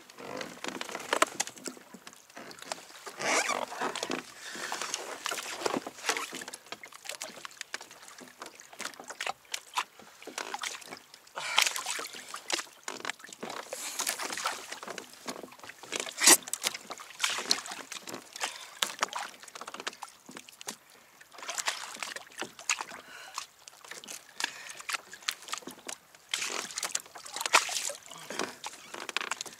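Water sloshing and splashing around a kayak, with irregular knocks and clicks.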